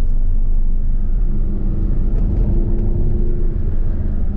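Audi R8 V10 at speed on track, heard from inside the cabin as a steady low rumble of engine and road noise.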